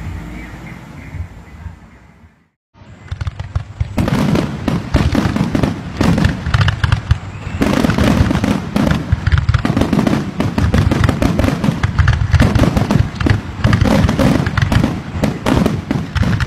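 Aerial fireworks bursting overhead: starting about three seconds in, a dense, continuous barrage of rapid bangs and crackling.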